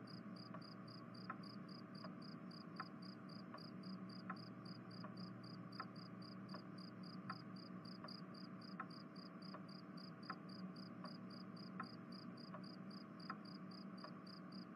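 Faint cricket chirping, even and steady at about four chirps a second, with a soft tick a little more than once a second.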